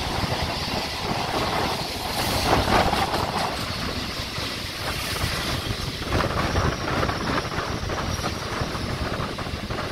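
Running noise of a moving train heard from an open doorway: wind rushing past and wheels rumbling on the rails, while a Howrah–Arambagh EMU local runs close alongside on the next track.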